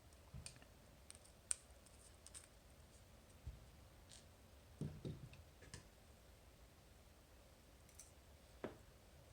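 Sparse, faint small clicks, about half a dozen spread over several seconds, from a Medeco lock being taken apart and its pins lifted out of their chambers.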